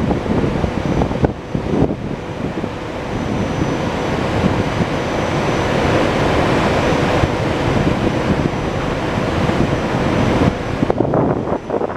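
GE Silverliner IV electric multiple-unit train close alongside the platform, giving a loud, steady rushing noise with wind on the microphone. About eleven seconds in, the high hiss drops away and the level falls.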